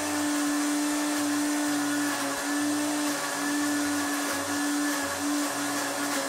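Electric countertop blender running steadily, its motor holding one pitch with slight dips now and then as it purées sweet corn, oil and yogurt into a thick paste.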